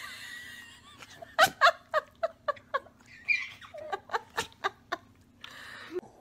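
Baby laughing in a run of short, quick giggles, starting about a second in and going on for about four seconds.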